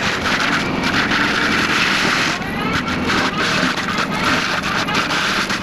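Takeuchi compact track loader running a FAE forestry mulcher head under load, grinding through brush and trees: a loud, dense, continuous noise broken by rapid irregular knocks.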